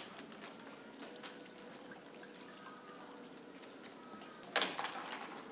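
Rhesus macaques jumping into a shallow pool: a splash about a second in, and a louder stretch of splashing water near the end.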